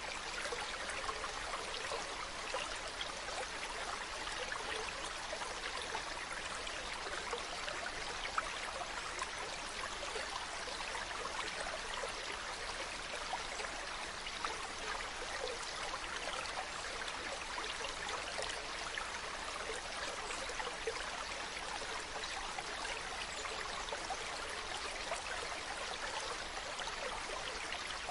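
Mountain stream running steadily: a continuous rush of water with many small trickles and splashes in it.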